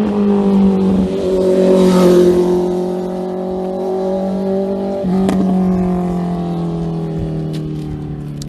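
A motor vehicle engine running steadily, its pitch sinking slowly and lifting slightly twice, about a second in and about five seconds in.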